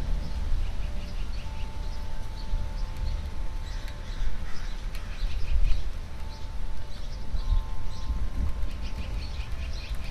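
Songbirds chirping again and again over a constant low, fluctuating rumble, with a faint steady hum underneath.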